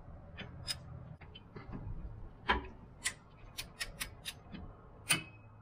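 Ratchet head of a click-type torque wrench working the secondary clutch bolt tight: scattered sharp metallic clicks, some in quick runs of several, with louder single clicks about two and a half seconds in and near the end.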